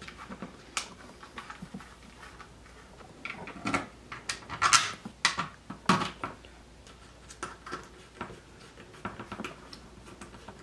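Small screws and hard 3D-printed plastic parts being handled and turned in with a screwdriver: scattered light clicks and taps, with a few louder knocks about four to six seconds in.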